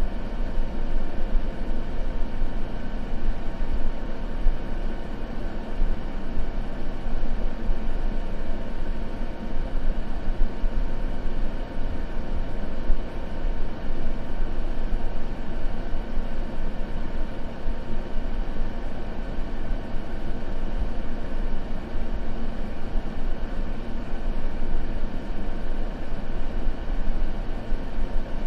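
Continuous ambient noise track for sleep: a steady, deep, even noise, heaviest in the low end, with a faint steady hum under it and no crackles or other events.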